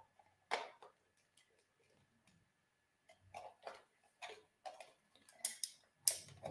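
Light plastic clicks and taps from a cactus-shaped lamp's hollow plastic base being handled and turned over: one click early, then a dozen or so irregular clicks, loudest near the end.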